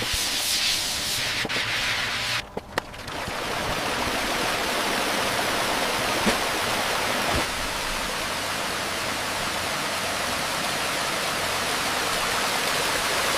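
Steady rushing water. A brighter, spray-like hiss in the first two and a half seconds breaks off briefly, then an even rush of water carries on.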